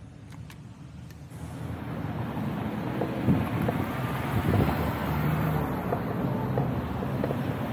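Wind rushing over the microphone of a rider on an electric unicycle, growing louder from about a second in and then staying strong. A few sharp clicks come at the start.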